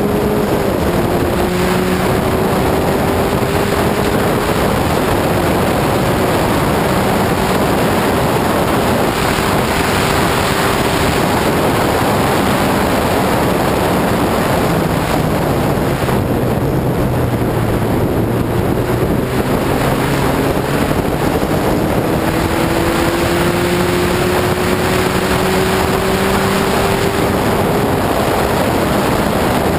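Lotus 61 Formula Ford race car at speed: its Ford four-cylinder engine runs hard under heavy wind rush over the microphone. The engine note climbs slowly through long pulls, drops lower around the middle as the car slows, then climbs again.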